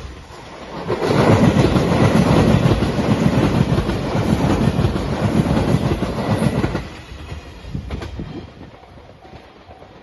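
A five-car JR Shikoku 8000 series electric limited express passing close by, its wheels clattering over the rails in a loud rush that builds about a second in and drops away suddenly near seven seconds.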